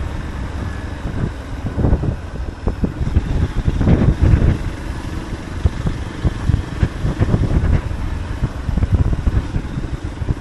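Motorcycle engine running at low road speed, with wind buffeting the microphone in uneven gusts.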